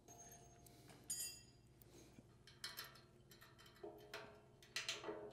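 Light clicks and clinks of small hardware being handled as a cube light and its mount are fitted into a bumper's light opening, with one brief ringing clink about a second in and a quick run of clicks near the end, over a faint low hum.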